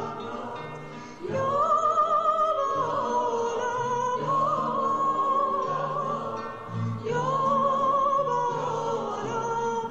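Background music with a sung melody: long held notes with vibrato over a steady pulsing accompaniment.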